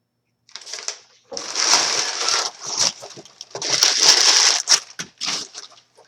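Packaging being crumpled and torn open in several crackling bursts as a parcel is unpacked.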